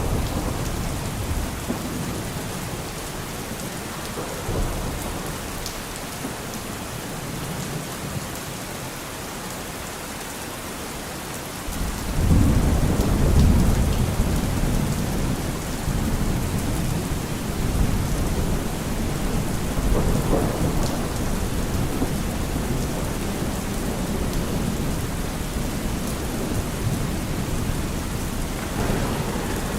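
Steady heavy rainfall hissing, with a deep roll of thunder that swells about twelve seconds in and slowly fades.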